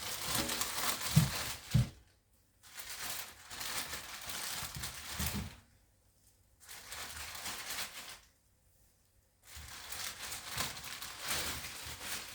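Plastic bag crinkling and rustling as it is handled, in four spells with short pauses between, and two soft thumps in the first two seconds.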